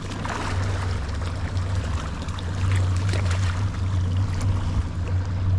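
Boat motor running steadily with a constant low hum, under water and wind noise.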